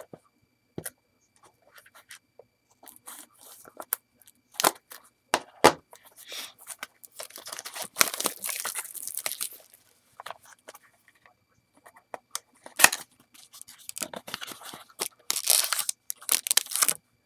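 A cardboard trading-card box being torn open and the clear plastic wrap around the stack of cards crinkled and ripped off, in stretches of tearing and rustling broken by clicks, with one sharp snap about two-thirds of the way through.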